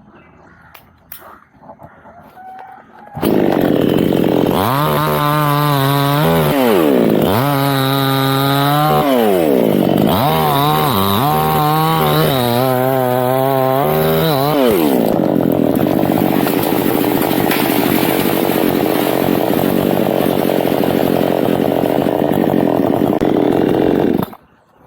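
A two-stroke chainsaw starts about three seconds in and is revved up and down four times. It then runs under steady load for about nine seconds, cutting into teak wood, and stops abruptly near the end.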